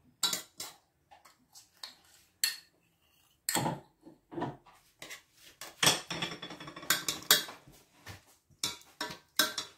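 Metal kitchen utensils and cookware clinking and knocking: a run of short, sharp, irregularly spaced clinks, busiest around three and a half seconds in and again between about six and seven and a half seconds.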